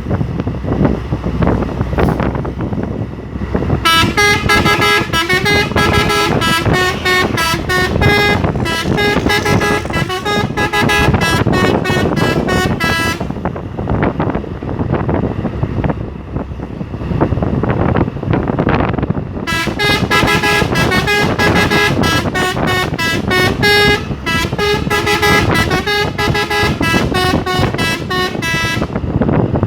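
Three-trumpet telolet musical air horn on a Hino truck playing a quick tune of rapidly changing notes, in two stretches of about nine seconds each, the second starting about halfway through. Truck engine and road noise run underneath and fill the gap between.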